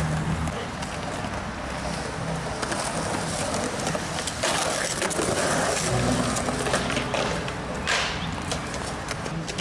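Skateboard wheels rolling on smooth concrete, with a few sharp clacks of the board popping and landing, the loudest about four and a half seconds in.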